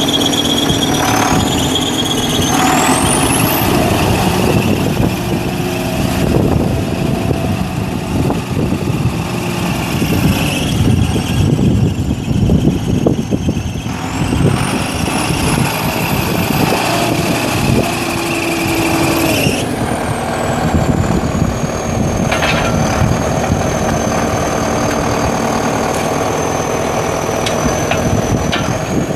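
The 2006 Zetor 10641 tractor's 4.2 L four-cylinder turbo diesel engine running as the tractor drives about, with a high whine that climbs and falls several times as the revs change.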